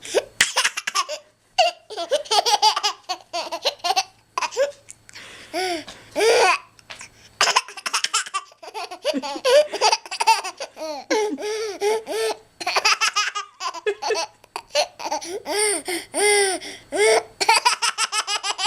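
Baby laughing in repeated short bursts of giggles and belly laughs, with brief pauses between them; he is laughing at his own hiccups.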